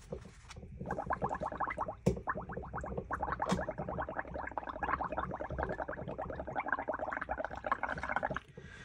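Air blown through a straw into a tub of soapy red ink, bubbling fast and continuously as the foam builds up. The bubbling starts about a second in and stops shortly before the end.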